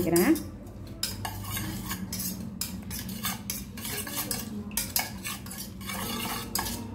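Metal spoon briskly stirring a wet mix of beaten egg, chopped onion and tomato in a stainless steel bowl: quick, even scraping and clinking of the spoon against the bowl, about three strokes a second.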